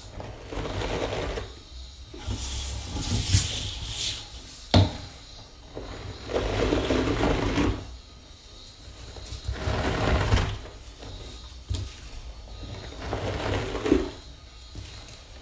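A dry sponge and hands squeezing and rubbing in Comet cleanser powder, in about five strokes each a second or two long with short pauses between. A sharp knock comes a little under five seconds in.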